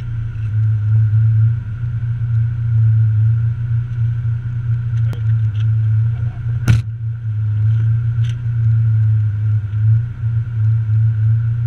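Rally car's engine idling steadily, heard from inside the cabin while the car stands at the stage start. A single sharp click sounds a little over halfway through, with a couple of fainter clicks around it.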